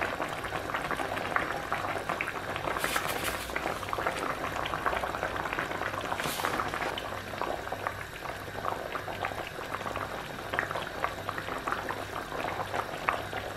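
Yellow fish broth bubbling at a steady boil in a frying pan, a continuous crackle of small bubble pops, with two brief hisses about three and six seconds in.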